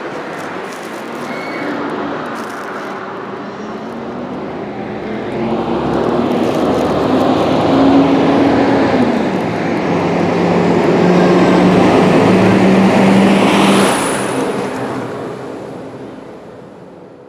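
Tram passing close by on street rails: the running noise swells over several seconds, with a steady low electric hum and a thin high whine, then fades near the end.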